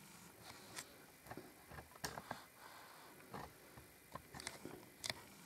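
Quiet room tone broken by a few faint, scattered clicks and light taps, about five at irregular intervals.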